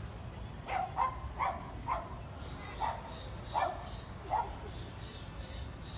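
A dog barking: about seven short barks, unevenly spaced, over the first four and a half seconds.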